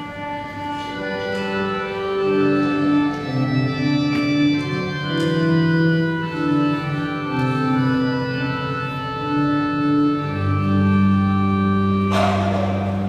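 Church organ playing the introduction to a sung psalm: slow, held chords that change in steps. A deep bass note comes in about ten seconds in, and a short burst of noise sounds near the end.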